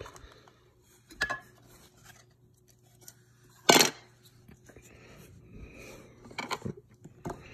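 A rigid clear plastic trading-card holder being handled and worked open by hand: a few hard plastic clicks and taps, with one loud sharp click a little before the middle and a quick run of clicks near the end.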